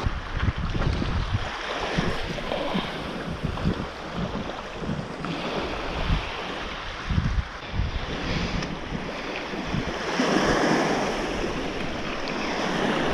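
Sea waves washing in, with wind buffeting the microphone in uneven low gusts; the surf swells louder about ten seconds in.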